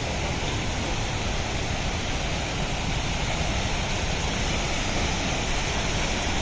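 Waterfall rushing steadily: a constant, even wash of falling water with no breaks.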